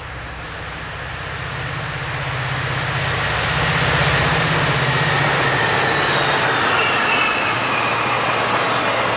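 Amtrak F40PH diesel locomotives passing close by, their engine drone growing louder over the first few seconds as they approach, then the steady rumble of the train rolling past. A faint high whine falls in pitch in the second half.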